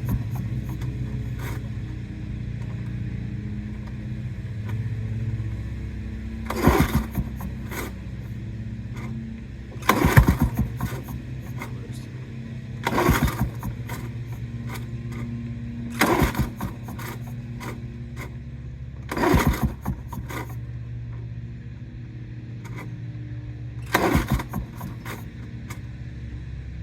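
Lawn-Boy 8073B two-stroke mower being pull-started six times, about every three seconds. Each pull spins the engine over briefly without it catching: a hard start after the mower has sat a long time. A steady low hum runs underneath.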